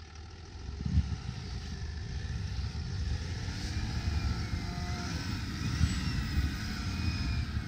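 Land Rover Discovery 4 driving slowly past through deep snow, its engine running with a steady low rumble. A dull knock about a second in.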